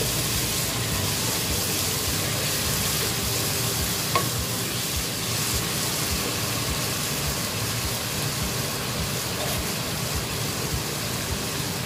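Biryani masala of fried onions, tomatoes and spices sizzling steadily in hot oil in a pot while it is stirred with a wooden spoon, with one light knock about four seconds in.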